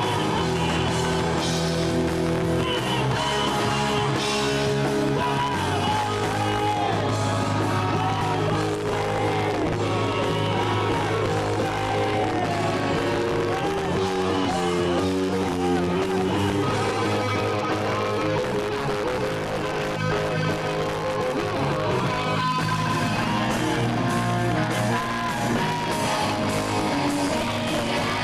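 A rock band playing live: electric guitars, bass and drums, with what sounds like singing or a wavering guitar lead over them.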